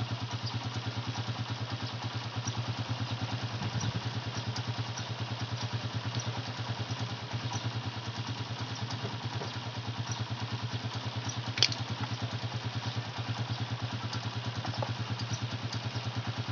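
Honda TMX 155 single-cylinder four-stroke motorcycle engine idling steadily with an even, fast pulse. It is running without its key, the two black ignition-switch wires disconnected. One sharp click sounds partway through.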